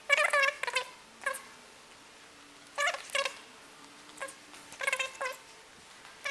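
A cat meowing repeatedly: a string of short meows, some in quick pairs, with brief pauses between them.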